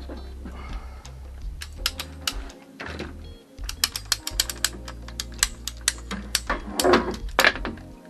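Ratcheting pipe cutter clicking rapidly, several clicks a second, as it is worked on plastic hose, followed by two louder handling knocks near the end. Background music plays throughout.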